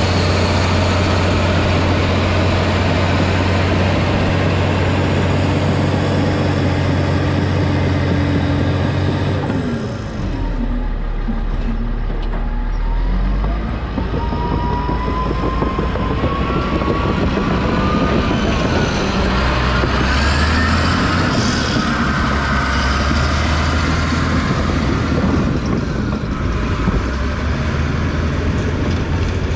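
Cat D6H Series II crawler dozer's six-cylinder diesel engine running hard under load, with the clatter of its steel tracks. About ten seconds in the engine note drops and dips briefly, then builds back up, with some rising squeals in the middle.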